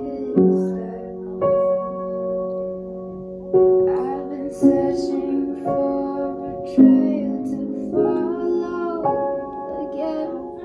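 Upright piano played slowly, a chord struck about once a second and left to ring.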